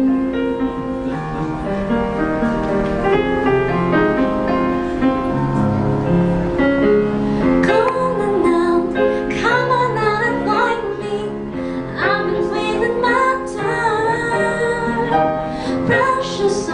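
A woman singing a pop ballad live to piano accompaniment. The piano's held chords carry the first several seconds, and about eight seconds in the voice comes in with melodic runs over them.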